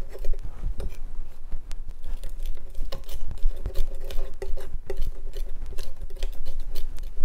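Knife chopping garlic on a wooden cutting board: quick, irregular taps of the blade against the wood.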